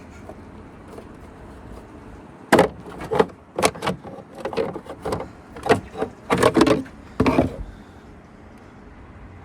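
A run of irregular clunks and clicks, about a dozen sharp knocks over some five seconds starting about two and a half seconds in: hands handling latches and parts under a pickup truck's open hood.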